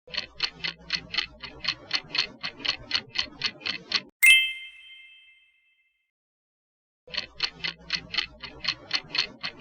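Quiz countdown-timer sound effect: fast clock ticking, about five ticks a second, for about four seconds, ending in a bright bell ding that rings out as time runs out. After a short silence the ticking starts again about seven seconds in.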